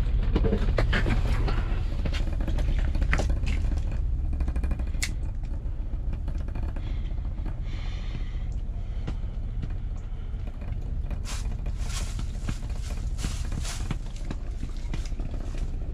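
A steady low rumble with scattered light clicks and taps from a spinning reel and short ice-fishing rod being handled and reeled.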